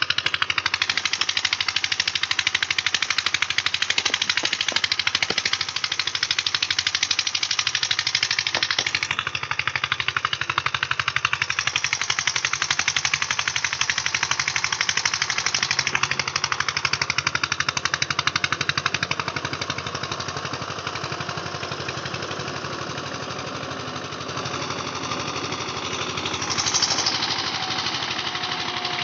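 Eicher tractor's diesel engine running with a rapid, even knocking beat. It eases off and gets quieter about two-thirds of the way through.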